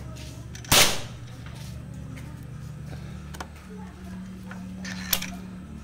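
A single shot from a Manlapat long-tank hammer-type CO2 air rifle firing an 18-grain pellet: one sharp crack about a second in. A fainter click follows near the end.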